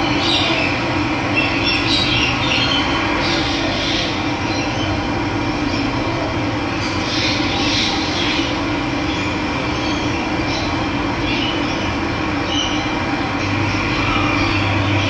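Steady rush of running water, with wild birds chirping now and then over it.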